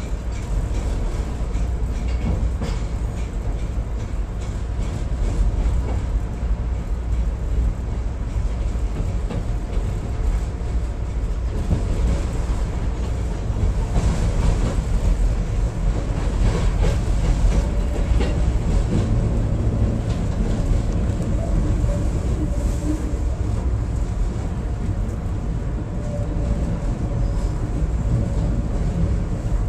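Chicago 'L' Brown Line rapid-transit railcar running along the tracks, heard from inside the car: a steady low rumble of wheels on rail, with clicking and clatter over rail joints, a little louder about halfway through.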